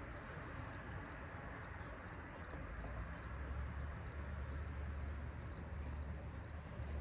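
Faint, even cricket chirping, about two chirps a second, with a low hum coming in about three seconds in.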